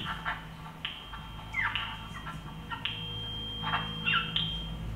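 Handheld walkie-talkie letting out a rapid, irregular string of short electronic chirps and squawks, with a steady high beep held for about a second near the middle.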